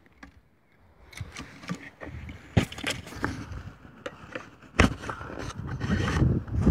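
Irregular knocks, clicks and scrapes over rustling, growing louder and heavier near the end.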